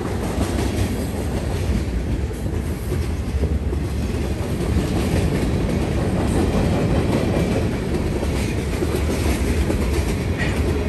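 Freight cars of a passing BNSF freight train (boxcars, covered hoppers and tank cars) rolling by close at hand: a steady, loud rumble and clatter of steel wheels on the rails.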